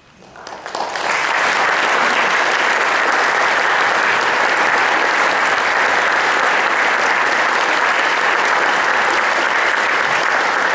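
Audience applause: a few scattered claps, then full clapping within about a second, holding steady and loud.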